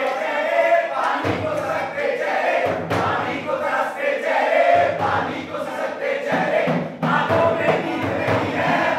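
A group of voices singing together, with a hand-held frame drum beating along.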